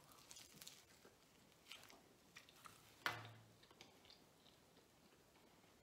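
Faint close-up chewing of a bite of pizza crust, with small crunches and mouth clicks; about three seconds in, a short low hum.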